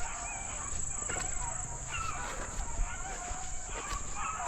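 Pack of rabbit hounds baying on a running rabbit, several overlapping voices rising and falling, over a steady high insect drone.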